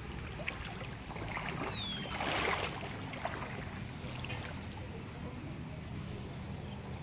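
Water sloshing and splashing as someone wades through shallow floodwater, with the biggest splash about two and a half seconds in. A low steady hum runs underneath.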